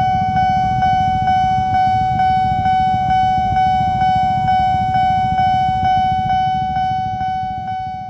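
Railway level-crossing alarm ringing at a fast tempo: a loud bell-like tone struck about twice a second, with a low rumble beneath. It grows fainter near the end.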